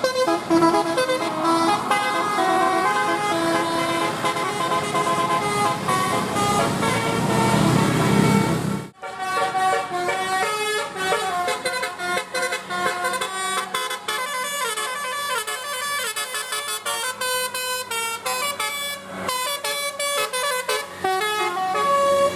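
Bus 'telolet' musical horn playing tunes of quick stepped notes, breaking off briefly about nine seconds in before another tune starts.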